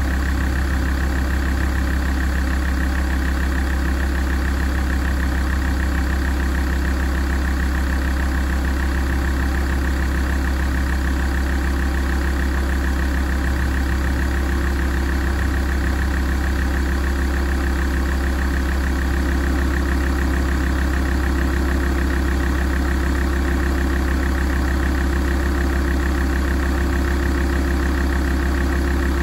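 Alfa Romeo 166 facelift's 129 kW 2.4 JTDm five-cylinder turbodiesel idling steadily while warming up.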